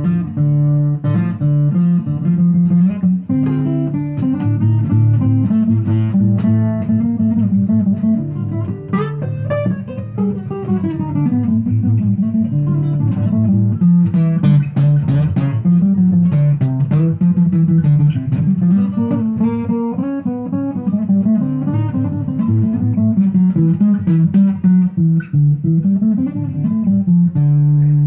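Acoustic guitar played solo as an instrumental close to the song: picked melody notes running up and down over bass notes, ending on a chord left to ring near the end.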